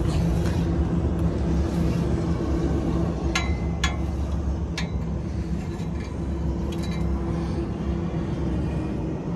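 An engine idling steadily, with a few sharp metallic clicks as a truck's oil dipstick is drawn out of its tube.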